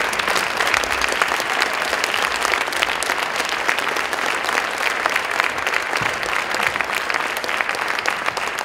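Audience applauding: many people clapping at once, steady and sustained.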